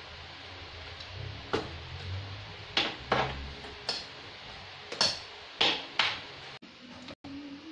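Metal spoon clinking against a stainless steel bowl while stirring sliced mango in thick syrup: a series of sharp clinks, about seven, spaced half a second to a second apart.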